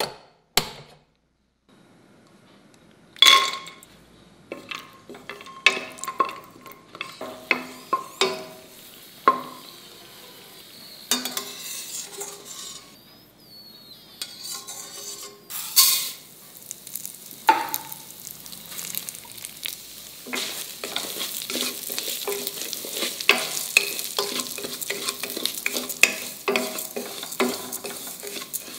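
Cooking sounds in a stainless steel pressure cooker. First come a couple of clicks from a gas stove burner, then a metal slotted spatula knocks and scrapes against the pot while cashews fry in a little fat. From about 20 s, dry barnyard millet and split moong dal are stirred and roasted, with a steady sizzle and a dense run of small ticks from the grains and spatula scraping the pot.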